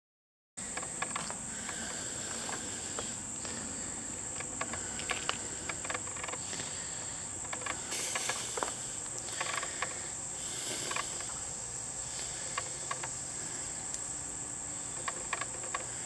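A steady, high-pitched drone of insects, with scattered light clicks and taps as hand tools and small screws are handled.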